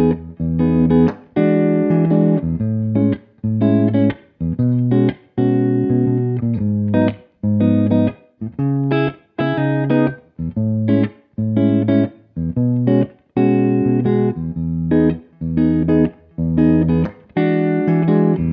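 Jazz guitar playing chords, plucked one after another. Each chord rings for about a second, with short breaks in between.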